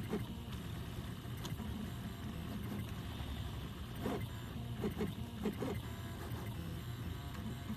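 3D printer running a print: its stepper motors hum and whine, changing pitch in steps, with several short rising chirps from quick moves of the print head.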